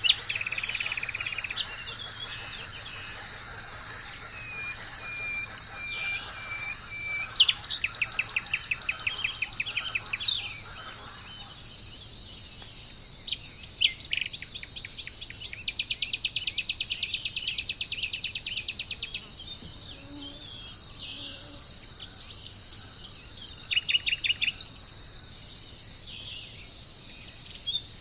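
Wild birds calling over a steady, high insect drone. A short run of even notes comes a few seconds in, fast trills follow around eight seconds, and a long rapid trill runs from about the middle, with more trills near the end.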